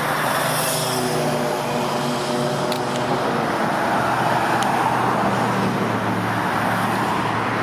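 Road traffic: a motor vehicle's engine hum that drifts slightly lower in pitch and fades after about six seconds, over steady tyre and road noise.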